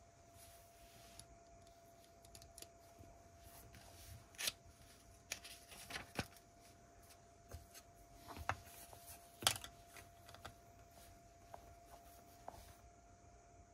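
Lego pieces being handled and snapped together: scattered small plastic clicks and light rattling, the sharpest about four and a half and nine and a half seconds in.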